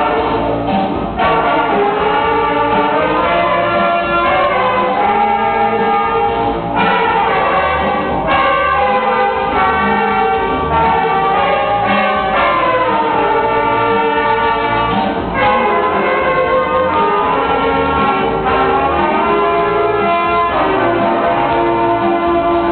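A small student saxophone ensemble playing a piece together in harmony, with held notes that change together every second or so.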